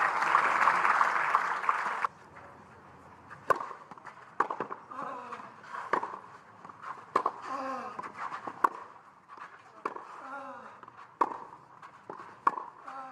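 Spectators applauding for about two seconds, then stopping. Scattered sharp knocks of a tennis ball being bounced on the court follow, with faint voices in the crowd.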